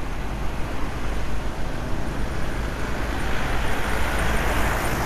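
City street traffic heard from a moving vehicle: a steady low rumble with road and wind noise. A rushing noise swells about three seconds in, as of a vehicle passing close.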